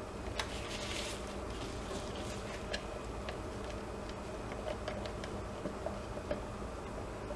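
Small plastic soap-making tools handled over a wooden loaf mold: a short scrape about half a second in, then scattered light clicks and taps as a plastic scraper and spatula knock against each other and the mold while soap is cleaned off them. A steady low hum runs underneath.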